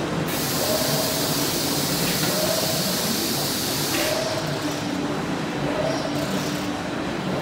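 Automatic hexagonal wire mesh weaving machine running, its working cycle repeating about every second and a half to two seconds. A steady loud hiss sits over the first half and cuts off about four seconds in.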